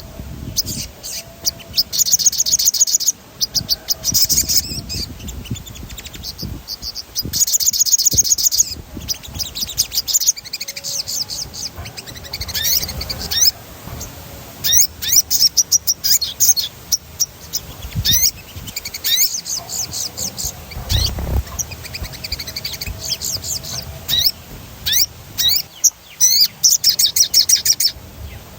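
Sogon bird singing continuously: bursts of rapid, high rolling trills alternating with quick downward-sweeping notes, several phrases a few seconds apart.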